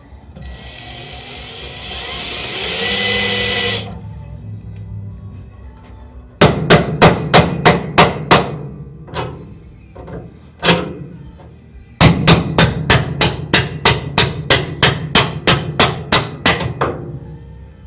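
A power drill cuts into sheet steel for about three seconds with a rising whine, then a hammer strikes the metal in quick runs of sharp, ringing blows, about three a second, while the rocker panels' spot-welded steel is worked loose.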